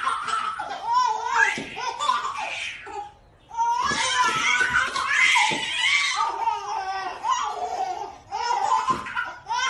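Babies belly-laughing and giggling in high-pitched bursts, with a short break about three seconds in.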